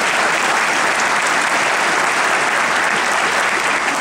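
Large audience applauding: dense, steady clapping from a big crowd.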